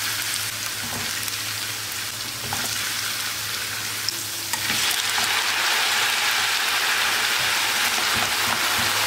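Diced potatoes sizzling in shallow hot vegetable oil in a frying pan. About halfway through the sizzle suddenly gets louder and fuller as the oil bubbles harder.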